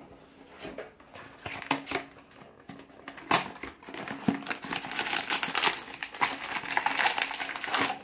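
Crinkling and rustling of a holographic foil blind-box bag being handled, with a few faint clicks at first, then dense crackling from about three seconds in that grows busier toward the end.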